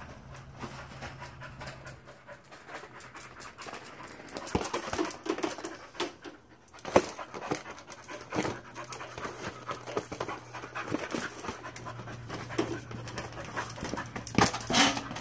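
A dog panting while dribbling a ball, with scattered knocks and taps from the ball and its paws on the concrete patio and the clutter around it. The sharpest knock comes about seven seconds in.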